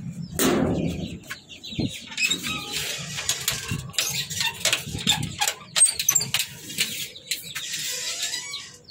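Caged pet birds chirping faintly and fluttering, over a run of clicks and knocks as a metal mesh door with bolt latches is handled, loudest in the first second.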